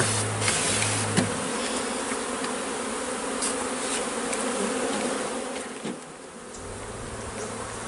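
A mass of honey bees buzzing around opened hives, a dense, steady hum, with a couple of faint knocks.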